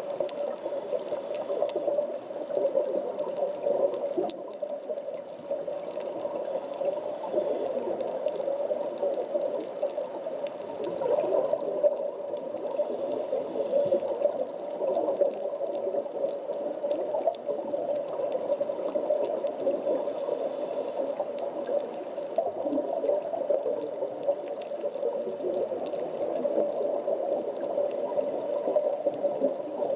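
Underwater sea ambience at 15 m depth, picked up by a 360-degree camera sealed in a waterproof housing: a steady, muffled water noise with faint scattered clicks and a brief higher hiss about two-thirds of the way through.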